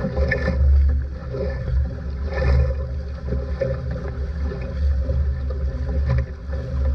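Water rushing and splashing along the plywood hull of an outrigger sailing canoe moving fast through chop, with heavy wind buffeting on the microphone. There are louder splashes about a third of a second in and again about two and a half seconds in.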